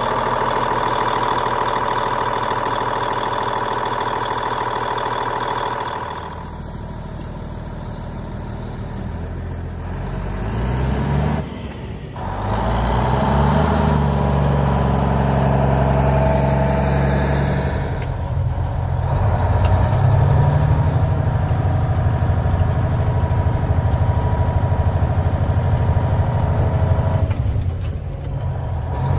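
Cummins N14 Select Plus diesel engine of a 1998 Freightliner FLD120 semi truck, first idling steadily up close, then heard pulling away with its pitch rising through several revs around ten to fifteen seconds in. From about twenty seconds it runs steadily under way.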